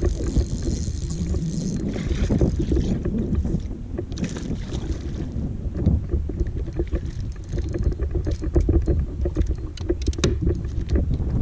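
Wind rumbling on the microphone over water lapping against a fishing boat's hull, with scattered light clicks and taps in the second half.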